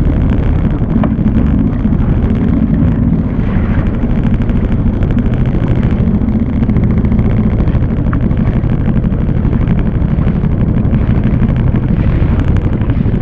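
Jet ski engine running steadily, with no revving or change in pitch.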